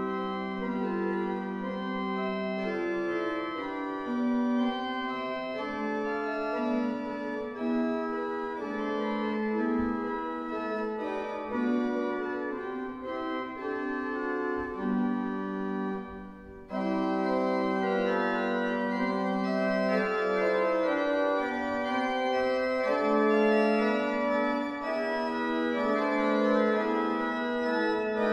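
Bätz pipe organ playing a piece in full chords. After a brief break about sixteen seconds in, it resumes with a brighter sound.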